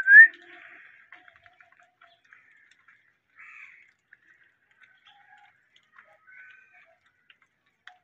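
Indian ringneck parakeet giving one loud rising whistle right at the start, then a few soft chirps and faint clicks.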